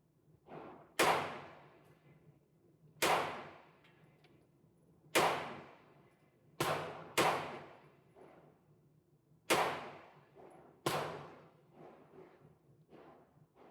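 9mm AR-15 pistol firing single shots: seven sharp reports, each trailing off with an echoing tail, at uneven gaps of about one and a half to two seconds, two of them just over half a second apart. Fainter shots fall between them.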